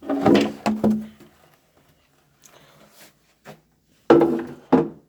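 Furniture being moved: two bursts of scraping and knocking on the floor, each about a second long, the second about four seconds in.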